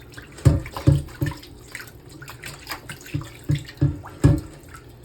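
A cast iron pan being scrubbed clean in water in a sink, the burnt-on food coming away easily after a short soak. Water runs and splashes, and the pan knocks dully seven times, three in quick succession about half a second in and four more in the second half.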